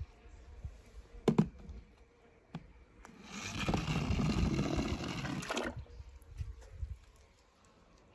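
A plastic toy monster truck knocked down onto a ramp of wooden craft sticks about a second in, with a lighter knock after, then about two and a half seconds of rushing water.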